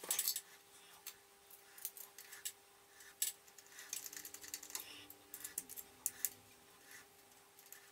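Scattered light metallic clicks and taps of steel bolts being handled and tried against a milling machine's table, over a faint steady hum.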